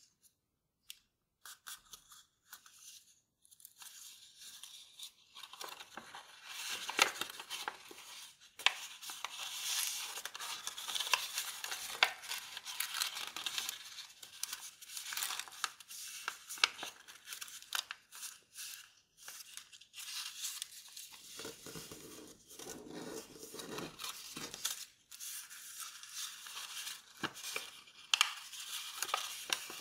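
A square of kraft paper rustling and crinkling as hands fold and crease it, with many sharp little clicks and crackles as folds are pressed. Sparse at first, it gets busier after about five seconds.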